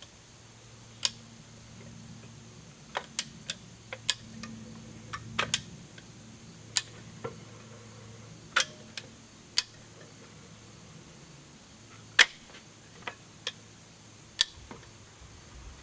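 Caulking gun being squeezed to run a bead of heavy-duty construction adhesive: sharp irregular clicks of the trigger and plunger rod. A faint low hum lasts until about ten seconds in.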